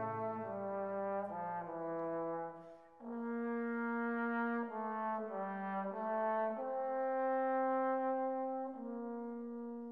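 Background music: a slow melody of long held notes, with a brief pause about three seconds in.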